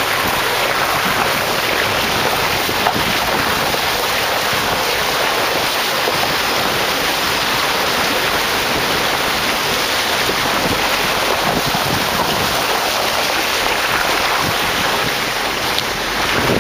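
Jeep driving through a shallow creek: a steady rushing noise of water churned up by the tyres, mixed with wind on the microphone.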